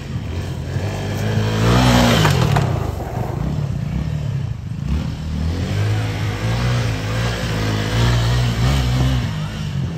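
Suzuki V-Strom 250 SX motorcycle's single-cylinder engine running at low speed, with the revs rising about two seconds in and then holding steady.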